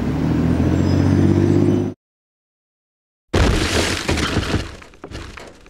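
Steady low hum of an idling vehicle engine that cuts off abruptly. After a second of silence comes a sudden loud crash sound effect of stone shattering, with pieces clattering down and fading away.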